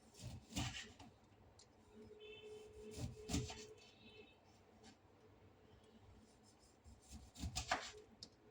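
Knife slicing a lemon: three short bursts of cutting and scraping, about a second in, around three seconds in, and near the end.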